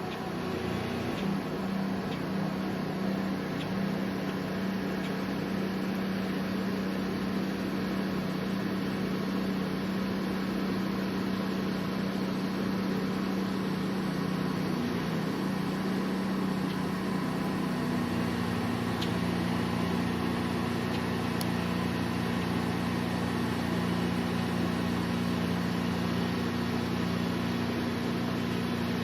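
Steady mechanical hum with a low droning tone that steps up slightly about eighteen seconds in, over an even background hiss.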